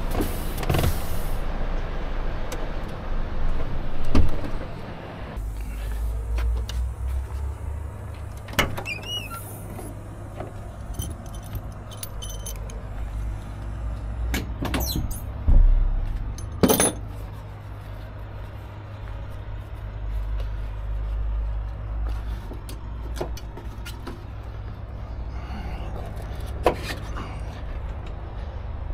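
Volvo FH truck engine running with a steady low hum that swells at times, broken by a handful of sharp knocks and clunks.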